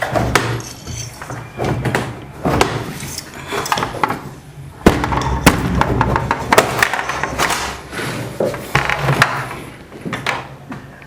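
Irregular knocks, clicks and clatter of hands and tools working on a washing machine's plastic top panel and its screws while it is being taken off.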